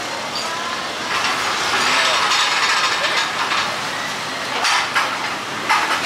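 Busy street-market ambience: a steady hubbub of voices and passing traffic, swelling for a couple of seconds, with two sharp clinks or knocks near the end.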